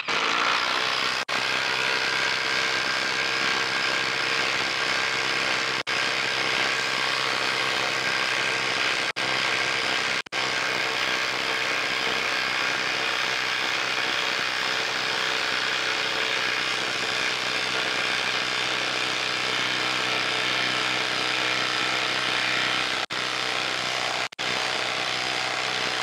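Bosch Freak 18V impact driver hammering steadily under heavy load as it drives a 6-inch by 1/2-inch lag screw into a log round, with a few momentary breaks.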